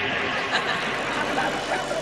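Steady background noise of an outdoor crowd gathering, with faint murmuring voices.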